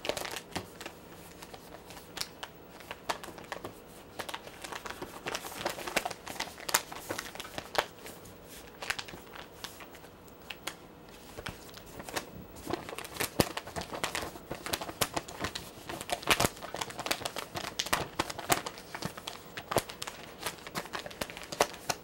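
A sheet of origami paper rustling and crinkling as hands fold it and tuck a flap in, in a run of irregular crackles.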